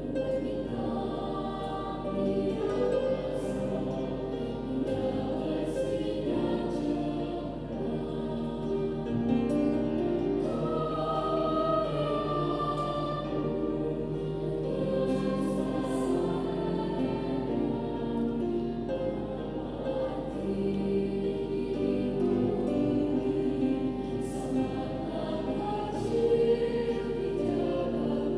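Junior high school student choir singing, several voice parts held together in long, steady notes.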